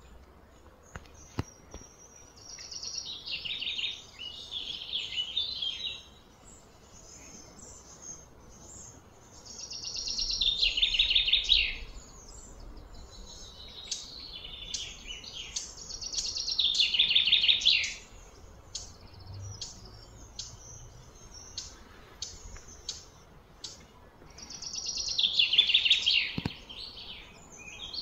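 Birds singing: loud phrases of rapid high chirps come about every seven seconds, each swelling for a couple of seconds and stopping short, with scattered short chirps in between.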